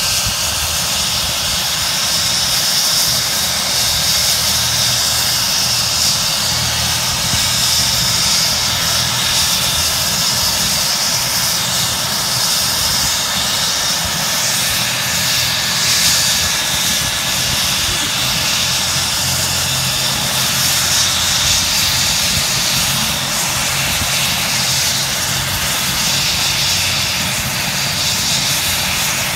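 Bell 429 air ambulance helicopter running on the ground with its rotor turning, its turbine engines giving a steady high whine over a low hum.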